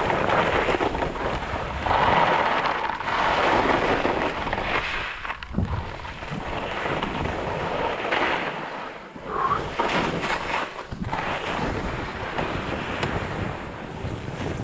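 Wind rumbling on an action camera's microphone, mixed with skis scraping and hissing over firm, wind-packed snow on a fast descent. The noise rises and falls in loudness throughout.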